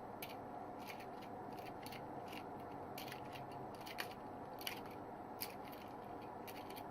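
Faint, irregular clicks of a plastic personal alarm keychain and its pull pin being tugged and handled, about one click a second; the alarm does not sound.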